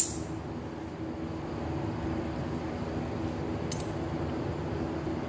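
A sharp metallic clink of hand-held steel tools at the very start, then a steady low hum with one faint click about three and a half seconds in as a vernier caliper is handled.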